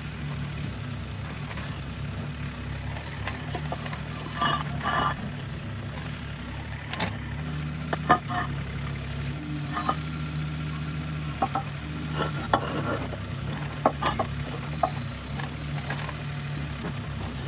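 Concrete paving slabs being lifted by hand off a gravel bed and laid on neighbouring slabs: scattered scrapes and gravel crunches with a few sharp clacks of concrete on concrete, over a steady low hum.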